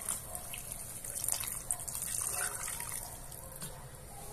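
A stream of water poured into a cast iron pot of hot sauce, splashing into the liquid; the pour eases off near the end.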